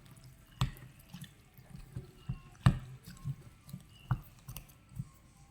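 Khmer rice noodles (num banh chok) being mixed with their sauce in a bowl: wet squelching with irregular clicks of a utensil against the bowl, the sharpest knock a little past halfway.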